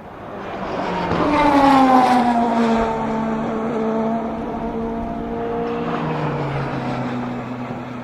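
Race car passing close by at speed, loudest about two seconds in, its engine note dropping in pitch as it goes past. A second car's engine follows a few seconds later, also falling in pitch.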